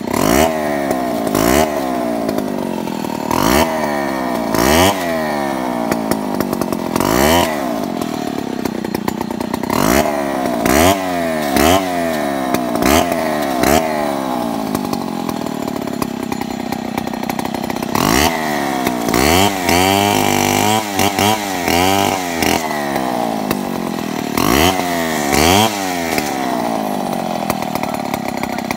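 Stihl two-stroke chainsaw revved again and again, its engine note rising and falling in short bursts, and held at high revs for a few seconds about two-thirds of the way through.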